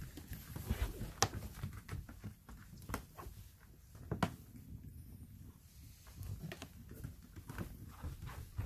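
Toy poodle wearing socks on all four paws stepping and shuffling on a wooden floor: irregular soft taps and scuffs, a few sharper clicks among them.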